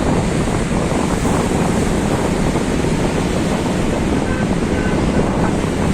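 Sea surf with wind buffeting the microphone: a loud, steady rushing noise heavy in the low end.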